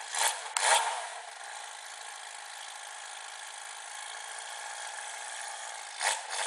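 Small go-kart engine running at a steady buzz. Two brief loud noises come in the first second and another near the end.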